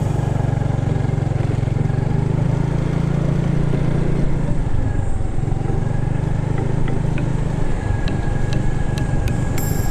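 Motor vehicle engine running steadily, heard on board while travelling, with a few light clicks near the end.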